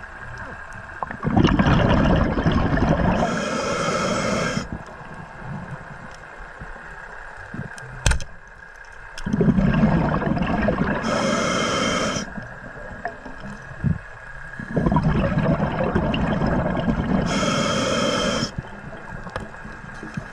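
Underwater breathing through a scuba regulator: three long breaths, each a rush of bubbling and hiss about six seconds apart, with a couple of sharp clicks between them.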